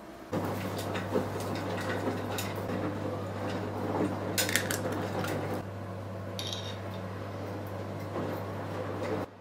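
Kitchen dishes and cutlery clinking and clattering, with scattered sharp clicks, over a steady low hum that starts just after the beginning and cuts off near the end.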